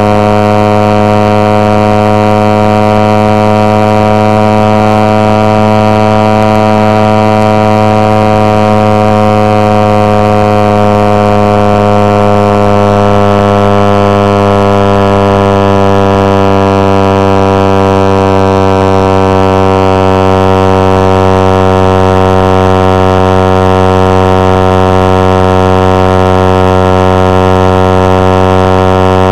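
Suzuki GSX-R150's single-cylinder four-stroke engine held at high revs during a top-speed run, a loud steady drone. Its pitch sags slightly from about halfway through.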